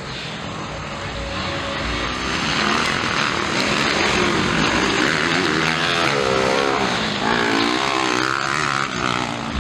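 Two Kawasaki KX motocross bikes racing, their engines revving up and down through the corners, growing louder a few seconds in.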